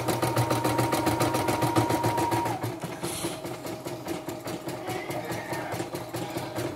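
CNY portable computerized embroidery machine stitching a design, its needle bar ticking in a fast, even rhythm over a thin motor whine. The whine drops in pitch about two and a half seconds in as the machine slows slightly.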